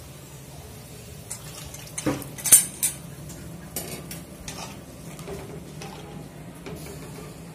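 A spoon stirring a thin masala gravy in a metal kadai, scraping and clinking against the pan, with a few sharp knocks in the first half, the loudest about two and a half seconds in.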